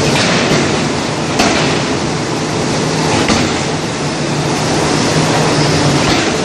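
Loud, steady forge-shop machinery noise with a low hum, broken by a sharp knock about a second and a half in and a fainter one about three seconds in.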